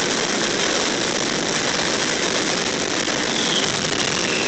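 Fireworks finale barrage: a dense, continuous run of bursts and crackle that merges into one steady, loud noise.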